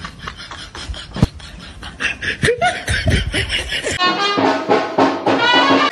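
Background music with a quick, regular beat, and a voice laughing about halfway through. About two-thirds in, the sound changes abruptly to a cleaner music track.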